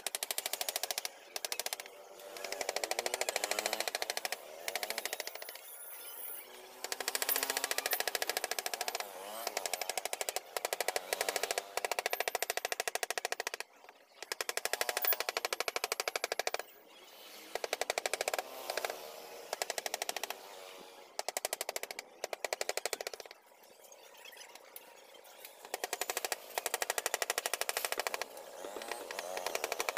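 Wood-carving chisel driven along an outline by rapid light taps of a wooden mallet, in bursts of a second or two with short pauses between them.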